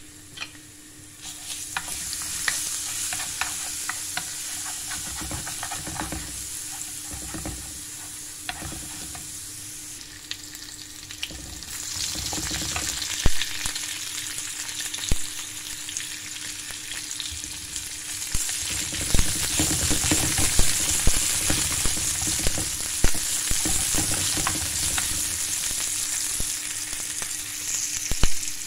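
Minced garlic sizzling in hot oil in a pan, stirred with a wooden spoon that knocks and scrapes against the pan. About twelve seconds in, sliced red onion goes in and the sizzling gets louder.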